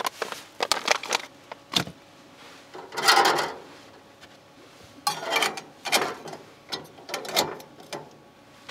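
Sharp metallic clinks and rattles of a stainless steel percolator coffee pot being handled, with two longer scraping rattles about 3 and 5 seconds in, and its hinged lid being shut.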